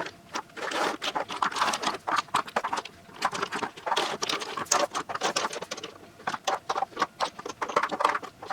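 Glass nail polish bottles clicking and clinking against one another as they are picked out of a pile and set down, in quick irregular clusters of clicks.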